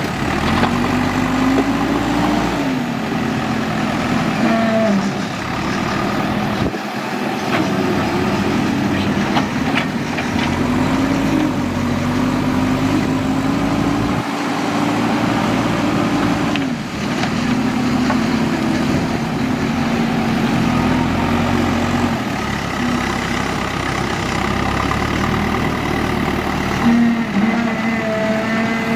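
Backhoe loader's diesel engine running, its pitch rising and falling several times as it is revved up and eased off.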